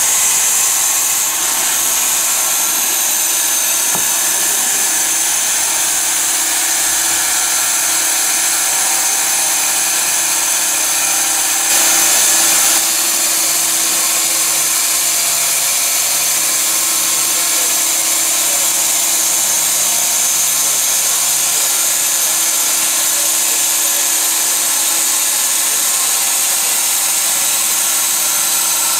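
Small electric band sawmill running steadily with a constant hum and a bright hiss, with a brief louder, brighter stretch about twelve seconds in.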